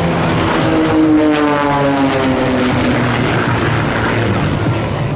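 Piston engines and propellers of three aerobatic biplanes flying past in formation: a loud, steady drone whose pitch falls slowly as they go by.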